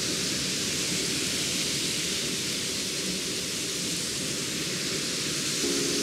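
Steady rushing of the lower Hörschbach waterfall, a dense, even noise of falling water. Background music comes in near the end.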